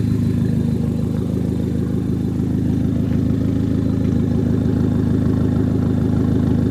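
Chevrolet Cobalt SS engine running steadily, a low, even drone with no revving.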